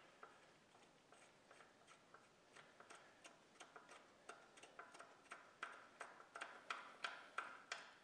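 Faint, regular metallic ticking, about three ticks a second, growing louder over the last few seconds, as a bolt is turned by hand into the Model T Ford generator's mounting flange.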